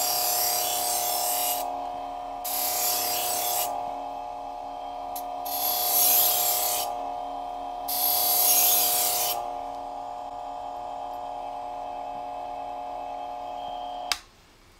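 Electric bench buffer running with a steady hum while a knife blade is stropped against its spinning buffing wheel: four hissing passes of about a second and a half each. Everything cuts off sharply near the end.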